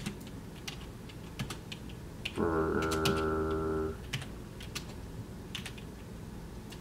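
Slow, hesitant keystrokes on a computer keyboard, single clicks spaced by pauses, as the typist hunts for each key on a newly learned Dvorak layout. About a third of the way in, a steady low hum lasts about a second and a half and is the loudest sound.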